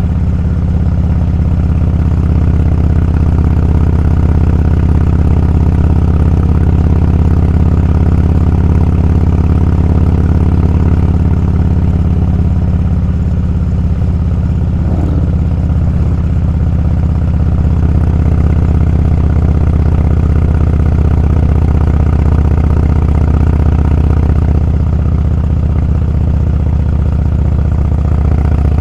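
Motorcycle engine running steadily while being ridden, a loud, even low rumble.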